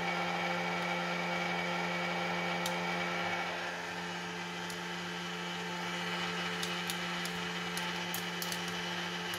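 Presto electric hot air popcorn popper running, its fan and heater giving a steady hum and hiss like a hair dryer. From about a third of the way in come scattered sharp pops, more frequent in the second half, as the first kernels start to burst.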